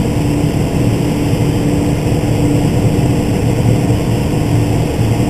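Case IH Magnum 305 tractor engine running steadily at working speed: an even drone with a constant hum.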